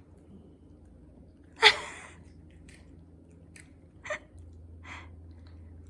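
A sharp knock about one and a half seconds in, then a few lighter clicks and taps.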